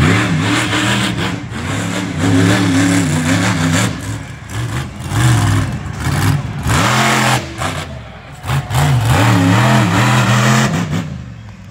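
Monster truck engine revving up and down again and again as the truck drives and spins on the dirt, easing off near the end.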